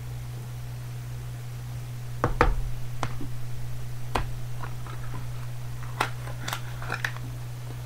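Hands handling trading cards and a clear plastic card case on a tabletop: a scatter of short clicks and taps, the loudest about two and a half seconds in. A steady low hum runs underneath.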